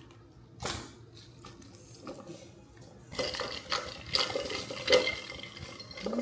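A snip of kitchen scissors through a rose stem about a second in. From about three seconds in, a bunch of rose stems is pushed down into a glass vase full of ice water: ice cubes clink against the glass and water sloshes.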